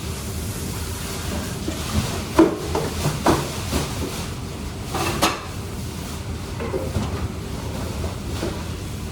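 Kitchenware being handled: a run of sharp clinks and knocks a couple of seconds in, and two more about five seconds in, over steady low background noise.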